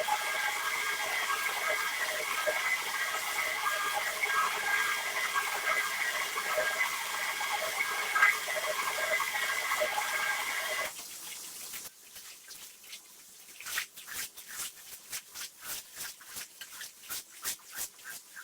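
Water rushing steadily with a machine whine, cutting off suddenly about eleven seconds in; then a quieter run of short, quick strokes, about two or three a second.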